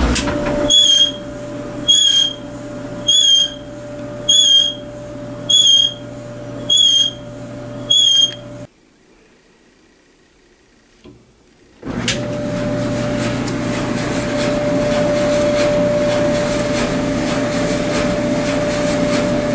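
Frigidaire electric clothes dryer running with a steady hum and a sharp high squeak about every 1.2 seconds, seven in a row. The squeak is the sign of a worn drum bearing or idler pulley, which the owner suspected. After a short silence the same dryer runs again with its worn drum bearing and idler pulley replaced: just the steady hum, no squeak.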